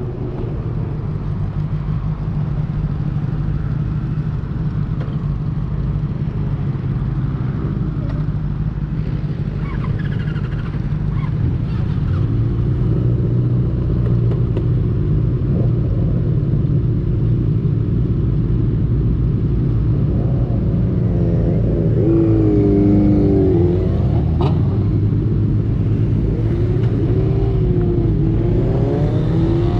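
Benelli TNT600 inline-four motorcycle engine running steadily under way. Its revs rise and fall twice in the last third.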